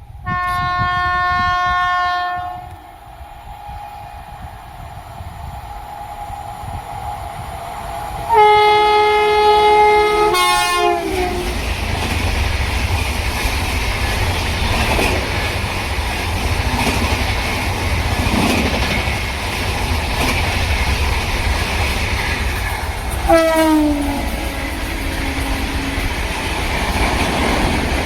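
Train horn sounding a blast of about two seconds, then a second, longer blast about eight seconds in whose pitch drops at its end as the train reaches the camera. The train then runs past with a loud, steady rumble and wheel clatter, and a short horn blast near the end also falls in pitch.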